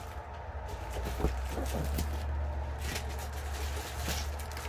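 A large diamond-painting canvas being laid down and smoothed by hand: soft rustling and a few light ticks over a steady low rumble.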